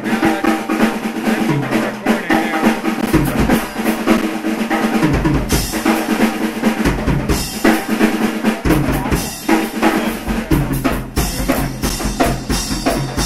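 Live rock drum kit played hard: snare and tom fills over bass drum beats, with cymbals, and held low notes underneath.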